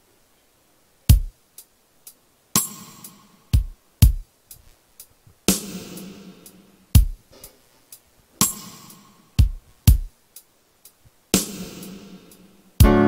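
Portable electronic keyboard's built-in drum rhythm playing alone: low drum thumps with a cymbal crash about every three seconds. Near the end a sustained keyboard chord comes in over it.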